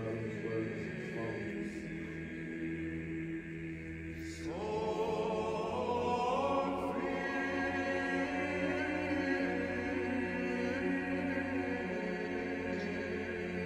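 Men's voices singing Orthodox chant over a steady low held note, more voices entering higher about four and a half seconds in.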